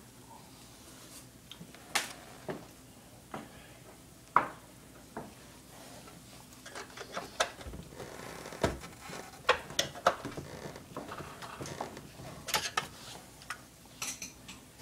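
Irregular clicks, knocks and metallic clinks of hand tools and parts being handled while a garbage disposal is replaced. There is a sharp ringing clank about four seconds in and a dull low thump near the middle.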